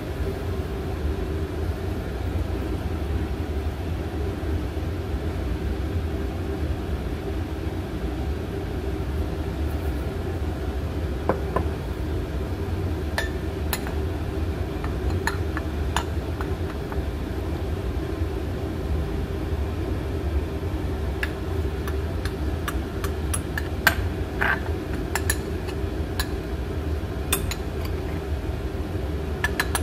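A metal spoon clinking against glass bowls and a glass jar, a scattered series of short clinks starting about a third of the way in, over a steady low hum.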